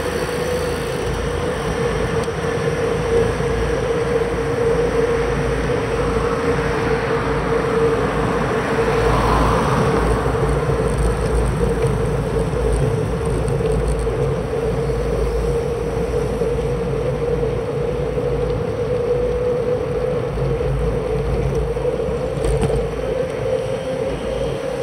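Steady wind rush and low rumble on a bicycle-mounted action camera's microphone while riding on asphalt, with a constant hum throughout and a slight swell about a third of the way in.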